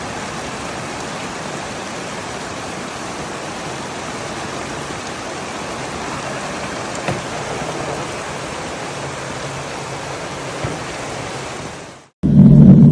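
Steady, even hiss of heavy rain. Just after 12 seconds it cuts off, and a loud, deep rumble of thunder begins.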